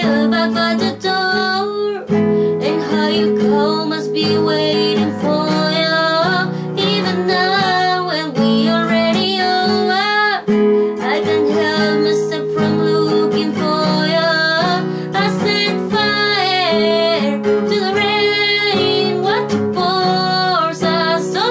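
A woman singing a pop ballad over strummed acoustic guitar.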